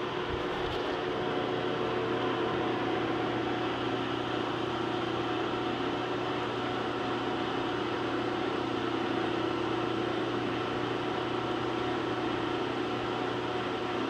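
Steady mechanical hum of workshop machinery running, a constant drone with several steady tones in it.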